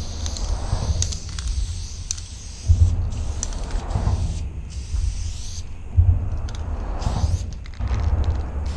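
Aerosol spray paint can hissing in bursts with short pauses as a wall is filled in, with a few light clicks. Under it runs a heavy, uneven low rumble of wind on the microphone.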